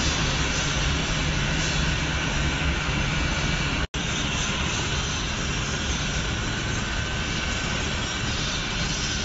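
Steady, loud roar with a low, droning hum underneath, like a running engine or large machine, broken by a split-second gap about four seconds in.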